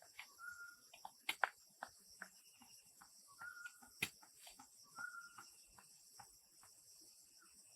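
A bird repeating a short, flat whistled note every second or two over a steady high-pitched insect drone, with a few sharp knocks.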